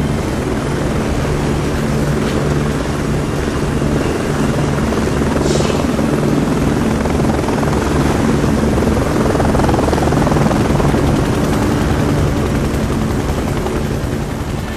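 Helicopter rotor and turbine engines running steadily.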